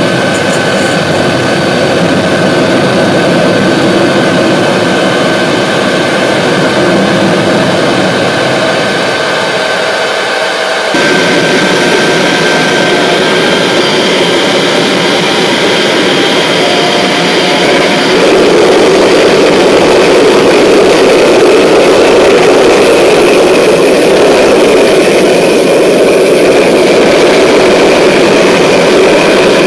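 Home-built turbocharger gas turbine engine running: a loud steady rush with a thin high whine over it. The sound changes abruptly about eleven seconds in and again about eighteen seconds in, running a little louder after the second change.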